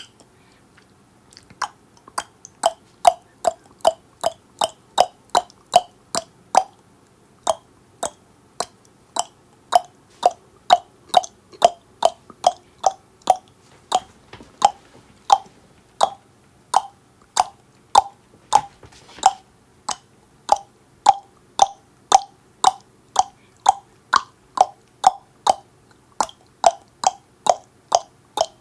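Tongue clicks in a steady, regular series of about three sharp clicks a second, broken by a pause at the start and a brief one a few seconds later.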